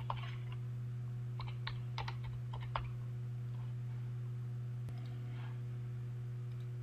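Computer keyboard keystrokes typing a date: a click at the start, then a quick run of about six keys between one and three seconds in. A steady low hum runs underneath.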